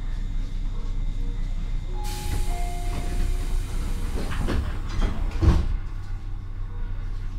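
Running noise inside a Tobu 9000 series armature-chopper electric train car: a steady low rumble from the running gear. About two seconds in a rush of wider noise starts, with a few short tones, and a cluster of clunks follows, the loudest about five and a half seconds in, before it settles back to the rumble.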